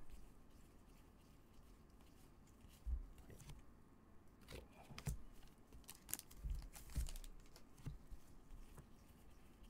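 Faint handling of trading cards by gloved hands: scattered soft clicks and rustles as the cards are slid through the stack and set down, with a few light taps on the table.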